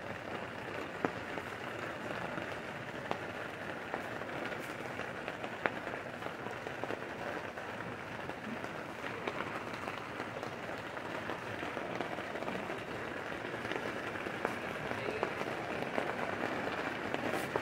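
A long-nosed butane lighter clicking a few times in the first several seconds as it is triggered to light a fire starter, over a steady background hiss.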